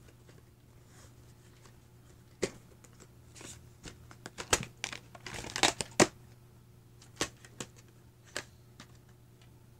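Plastic VHS clamshell case being handled and opened: a run of sharp clicks and snaps, with a crinkly plastic rustle a little over five seconds in.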